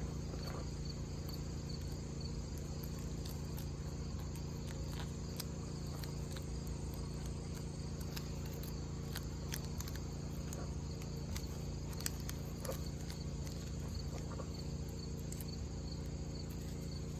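A steady low hum runs under a regular high-pitched chirping, typical of crickets, with a few faint clicks scattered through.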